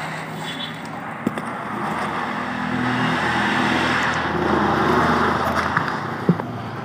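Steady mechanical rumble and hiss that grows louder through the middle and eases toward the end, with two sharp taps, one about a second in and one near the end.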